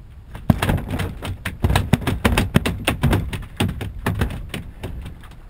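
A rapid, irregular run of sharp knocks and taps, several a second, starting about half a second in and dying away near the end.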